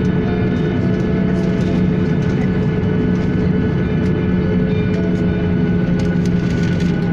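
Jet airliner's engines running steadily at low power as it taxis slowly on the runway, heard from inside the cabin: an even hum with several constant whining tones.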